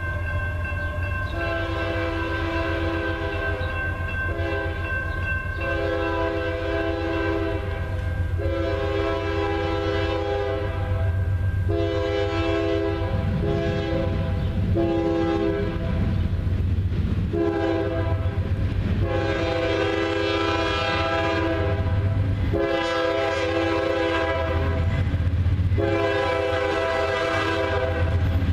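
Diesel locomotive horn on a CSX freight train, sounding a chord in a long string of blasts with short breaks between them. Under it is the steady low rumble of the approaching train, growing slightly louder.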